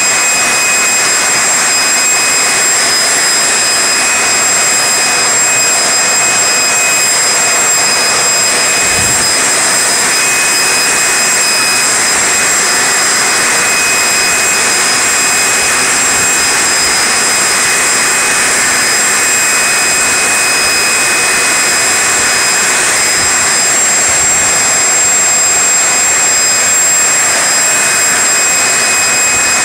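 Leaf blower running steadily, a loud rush of air with a high, constant whine, blasting sawdust off freshly chainsawed tree stumps.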